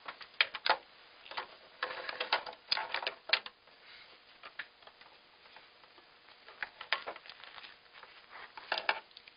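Scattered clicks and clatters from an 1898 New Home treadle sewing machine being handled: the handwheel is turned by hand and the fabric is worked out from under the presser foot. The clicks come in irregular clusters rather than a steady stitching rhythm.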